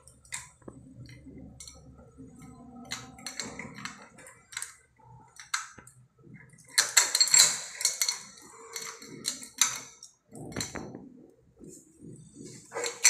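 Chrome shower fittings being handled and screwed together by hand: scattered small metallic clicks and scrapes, with a denser run of clinks in the middle.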